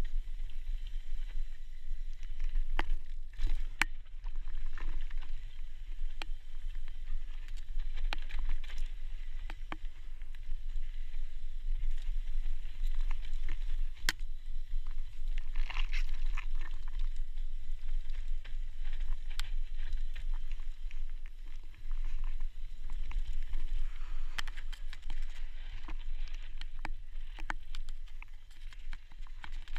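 Mountain bike descending a dry, loose dirt trail: tyres crunching and skidding over loose soil and stones, with frequent sharp rattles and knocks from the bike over bumps. A steady low rumble runs underneath.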